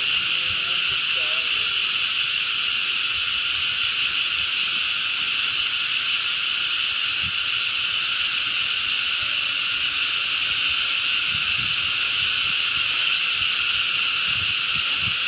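Steady, unbroken high-pitched buzzing drone of an insect chorus such as cicadas, with a fine rapid pulse and no change in level throughout.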